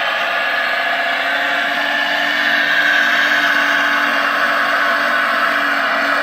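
Radio-controlled model excavator's electric drive whining steadily as it works, swelling slightly about three seconds in.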